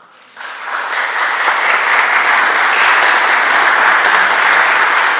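Audience applauding: the clapping starts suddenly, fills out within the first second and then holds steady and dense.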